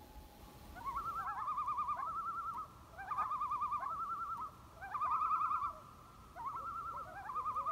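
Common loon giving its tremolo call: a rapid, wavering, laughing call repeated in four bouts, each opening with a brief upward swoop.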